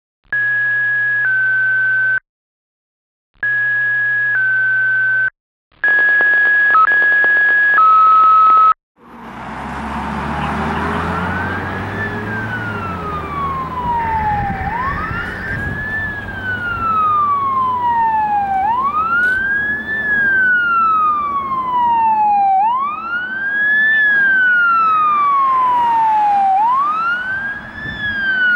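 Three sets of two-tone dispatch alert tones, each a steady higher beep stepping down to a lower one, with short silences between. Then a fire engine's siren wailing, a quick rise and a slower fall about every four seconds, over the diesel engine of a 2009 HME/Ferrara pumper.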